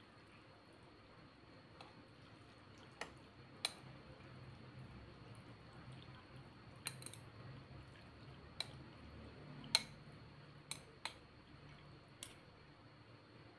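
Metal chopsticks and a metal spoon clicking against a ceramic bowl as noodles in broth are stirred and mixed, about eight faint, sharp clinks at irregular intervals.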